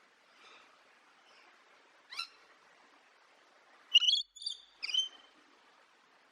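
Parrot calling: a short call about two seconds in, then three loud calls close together about four seconds in, the first the loudest.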